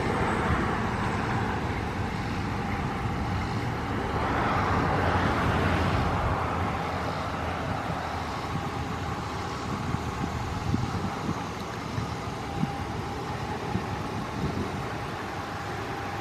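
Steady motor-vehicle noise, swelling a little about four to six seconds in, with a few light clicks in the second half.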